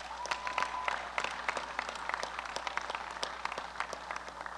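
Crowd applauding: a dense run of hand claps that swells at the start and eases off near the end, with a brief steady high tone in the first second.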